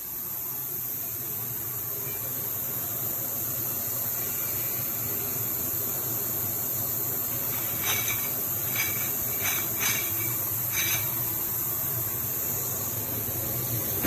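Industrial ultrasonic parts washer running, a steady low hum under a high hiss. Between about eight and eleven seconds, five or so metallic clinks ring out as metal parts knock together in a wire-mesh basket lifted from the tank.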